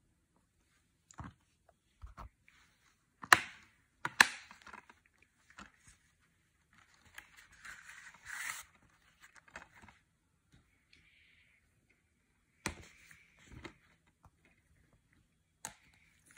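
Plastic Blu-ray case being handled and snapped shut: sharp clicks, the two loudest about three and four seconds in. Then a stretch of scraping and rustling as the case slides into its cardboard slipcase, and a few more clicks and knocks near the end as the cases are moved.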